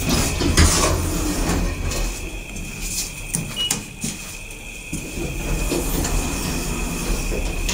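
1989 KONE traction elevator running: a steady low hum with a high whine, with a clunk about half a second in and a few clicks a few seconds later.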